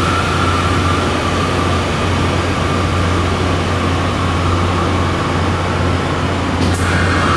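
Steady mechanical drone of machinery: a constant low hum under a higher whistling tone and an even rushing noise, with a brief click near the end.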